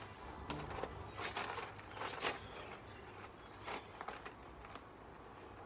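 A person doing press-ups on gravel: a handful of short, faint rustling bursts, fading out after about four seconds.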